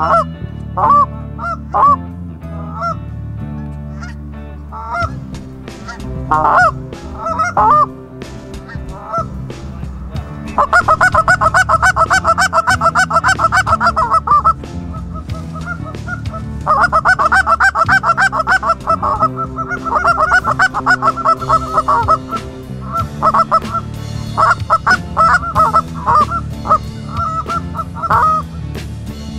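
Canada goose calling: loud honks and long runs of fast, even clucks, blown on a hunter's goose call amid geese flying in.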